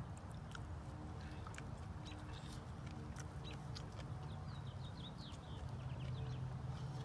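Animal chirping, a quick run of short, high, falling chirps around the middle, over a steady low hum and scattered clicks.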